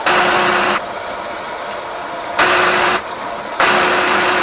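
Flexible-shaft drain cleaner's drill motor spinning the cable inside a blocked drain pipe in three short bursts that start and stop abruptly, over a steady lower hum.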